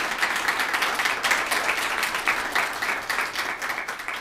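Audience applauding, many hands clapping at once, slowly dying away toward the end.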